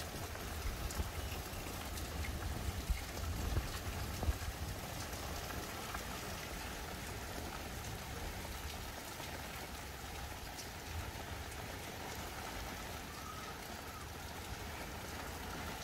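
Steady rain falling as a storm sets in, with wind starting to blow and a low rumble of wind on the microphone.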